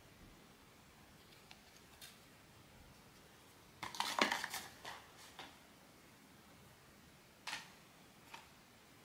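Small hard plastic pieces of a blind-box figurine and its packaging being handled: a quick run of clicks and rattles about four seconds in, then two single clicks near the end.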